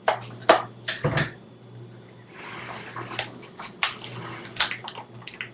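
A package being handled and opened by hand: a run of clicks and taps, with a stretch of rustling about halfway through.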